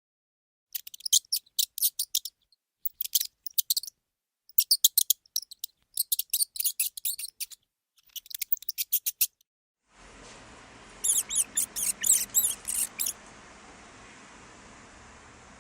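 Mouse squeaking: rapid trains of very high-pitched squeaks in several bursts with short pauses between. About two-thirds through, a steady background hiss comes in and one more burst of squeaks follows over it.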